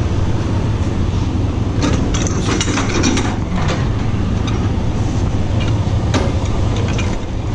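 Semi-truck diesel engine idling steadily, with a cluster of clanks and rattles about two to three and a half seconds in and another sharp clank about six seconds in.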